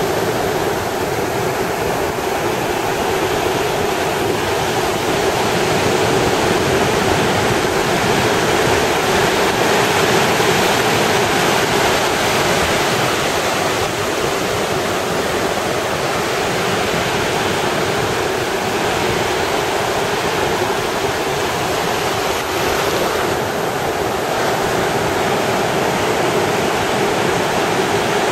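Ocean surf breaking on a sandy beach: a steady wash of waves that swells and eases gently, with no single loud crash.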